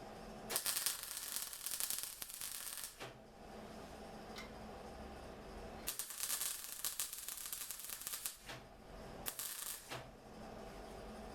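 Welder arc crackling in three bursts, a long one, another long one and a short one near the end: plug welds being laid on a car chassis repair patch with the welder turned right up. A steady low hum runs between the bursts.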